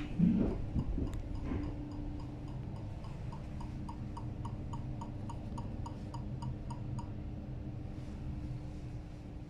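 Door push button of an ET 474 Plus S-Bahn train giving its acoustic locator signal: a regular ticking at about five clicks a second, like the ticking at traffic-light crossings for visually impaired people. It starts faintly, grows stronger and stops abruptly about seven seconds in. A steady train hum runs under it, and there is a short, louder rising sound right at the start.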